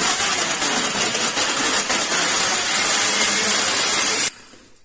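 Countertop blender running at full speed, crushing frozen strawberries with sugar and water into a purée, then cutting off suddenly about four seconds in.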